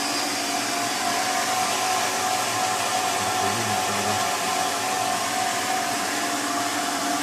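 Pedrollo JSWm 15MX self-priming jet pump station running with a steady whine and hiss. It runs but does not build pressure, a fault later traced to the impeller rubbing.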